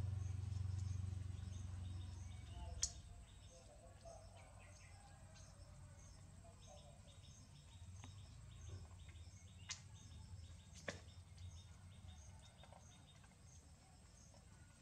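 Quiet outdoor background with a faint, evenly repeating pattern of high chirps. A low hum fills the first couple of seconds and then fades. Three sharp clicks come about 3, 10 and 11 seconds in.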